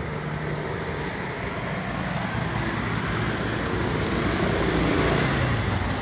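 A motor vehicle running close by: a steady engine hum under road hiss that grows slowly louder.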